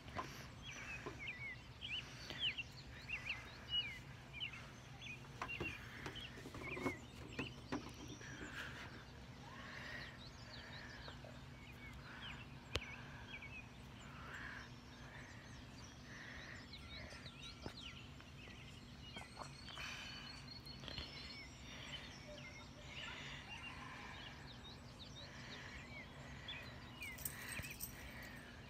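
Faint dawn chorus of songbirds, many short chirps and quick twittering calls overlapping, over a steady low hum.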